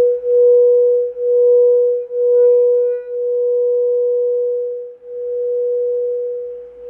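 Singing bowl sounding a steady low hum with faint higher overtones. For about the first three seconds it wavers in loudness roughly once a second, then settles into a smoother, steadier tone.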